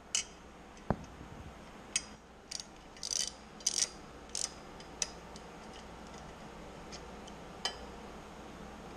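Socket wrench and extension clicking and clinking against metal while working on the exhaust fasteners of a ULPower UL350iS engine. About a dozen irregular clicks come in the first five seconds, and one more near the end.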